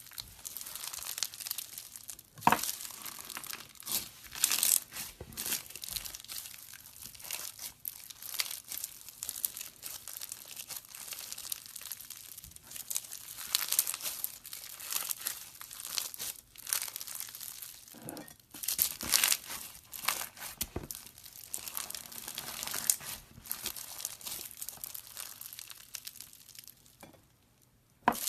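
Slime being squished and stretched by hand, giving a dense run of crackling and popping clicks that stops briefly near the end.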